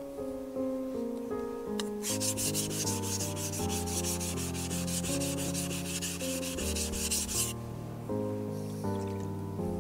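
Steel santoku kitchen knife being sharpened on a wet whetstone: rapid, even back-and-forth strokes of the blade rasping on the stone, starting about two seconds in and stopping suddenly about two seconds before the end. Background music with plucked notes plays throughout.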